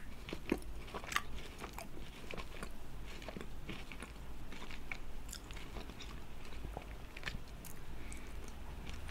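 Close-miked chewing of crunchy KitKat chocolate-covered wafer, with irregular crisp crunches and mouth sounds.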